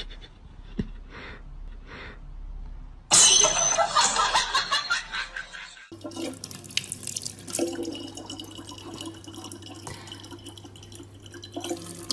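A faucet running a thin stream of water into an open plastic bottle, with a low steady hum under it. Before it comes a few seconds of short rhythmic breathing sounds, then a loud, noisy burst of about three seconds.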